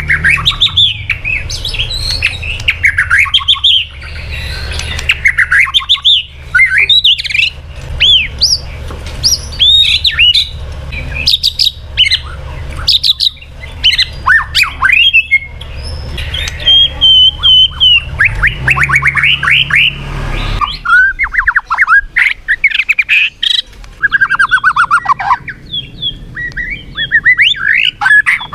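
White-rumped shama singing a fast, varied song of loud whistles, rising sweeps and rapid trills mixed with harsh notes. A low hum runs under the song and stops about two-thirds of the way through.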